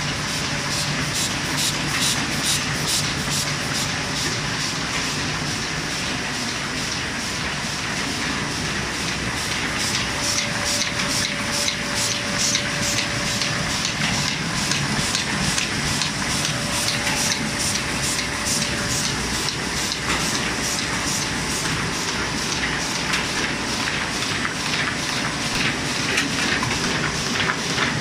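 SPM DM780 automatic film laminator running in production, feeding and transporting sheets: a steady mechanical clatter with fast, even clicking and a faint tone that comes and goes.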